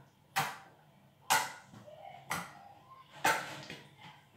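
A hand slapping and pressing a soft, wet white slime, four sharp squelching slaps about a second apart.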